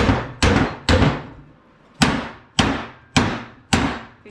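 Repeated hammer blows on the steel of an old, rust-seized arbor press, each hit ringing briefly as a stuck part is driven loose. There are about seven blows at roughly two a second, with a short pause after the first three.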